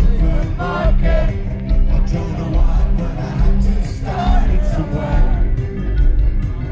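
Loud live concert music heard from inside the crowd: a heavy bass line with singing over it.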